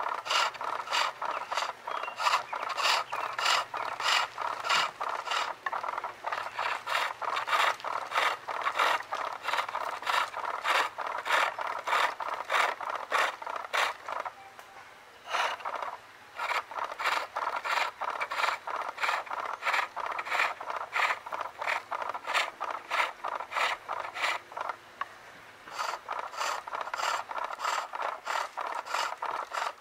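Skew chisel cutting maple on a pole lathe: a rasping cut with each treadle stroke, about two or three a second, easing off twice for a moment.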